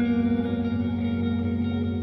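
Background music: soft ambient music with held, echoing guitar-like notes that change pitch every second or so.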